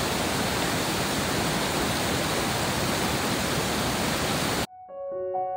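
Waterfall in heavy flow: a steady, even rush of water. It cuts off suddenly near the end, and piano music starts.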